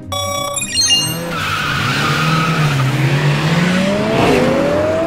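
Cartoon race-start sound effects: a final start-light beep, then race car engines revving and tyres squealing as the cars launch off the line. The engine pitch rises steadily over the last couple of seconds.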